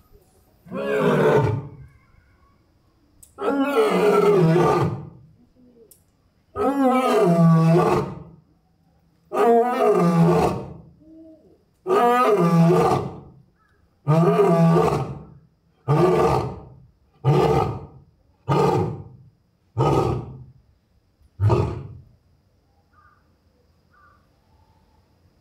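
Adult male lion roaring through a full bout: a few long, loud roars, then a run of shorter grunting roars that come faster and trail off, about eleven calls in all. It is a call to his absent mate and cubs.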